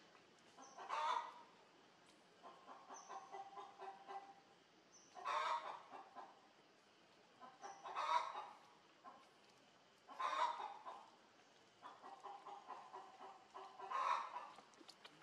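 Domestic chickens clucking: five louder calls a few seconds apart, with runs of soft, quick clucks between them.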